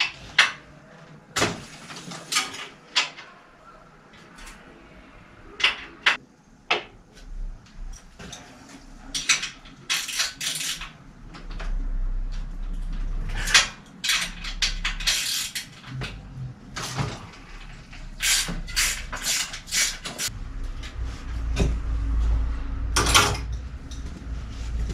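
Bicycle repair work: tools and metal bike parts being handled, giving an irregular run of sharp clicks, knocks and clatters. A low rumble comes in around the middle and again near the end.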